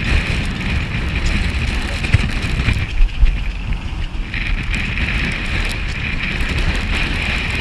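Storm wind buffeting a camera's microphone, a rough, gusty rumble with a few harder jolts, over sea spray. A steady high-pitched whine joins about four seconds in.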